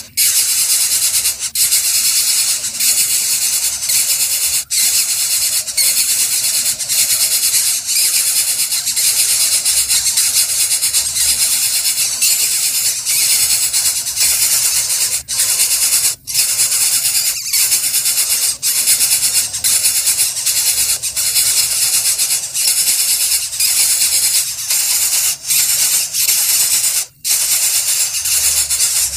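Coucal nestlings giving a loud, continuous rasping hiss, broken by short gaps every few seconds.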